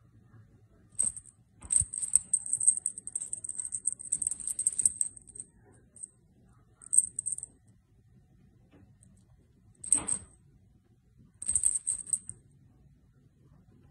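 Bursts of high metallic jingling: a short shake about a second in, a long run of about four seconds, then three shorter shakes spread through the rest.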